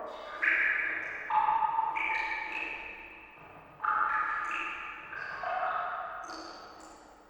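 Water drops falling one after another into water, each giving a pitched, ringing plink that fades slowly with an echo. There are about eight drops at uneven intervals, at different pitches, the last ones fainter.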